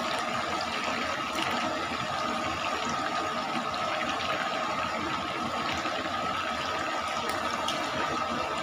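Chicken pieces deep-frying in a wok of hot oil: the oil bubbles and sizzles steadily, with faint scattered crackles and a steady high hum underneath.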